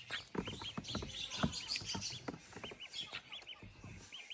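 Call ducks peeping: a rapid series of short, high chirps, several a second, with scattered light knocks.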